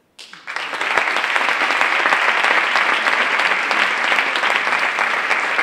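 Audience applauding, breaking out a moment in and holding steady and full.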